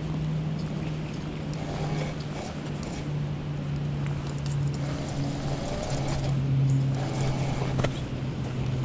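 A steady low motor hum that drops slightly in pitch twice, with a single sharp click near the end.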